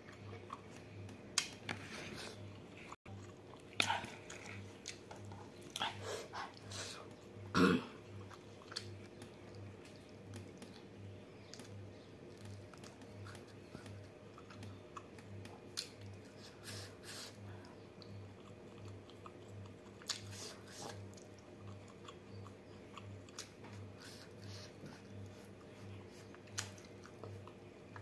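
A person chewing food close to the microphone, with wet smacking mouth clicks and occasional crunchy bites, most of them in the first third. A steady low hum runs underneath.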